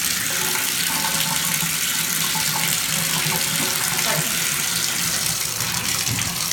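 Bathtub faucet running full, a steady stream of water splashing into the tub to test that the tub drains.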